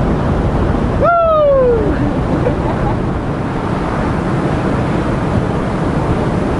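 Ocean surf surging and breaking against coastal rocks, with wind buffeting the microphone. About a second in, a single brief cry falls in pitch over the steady wash.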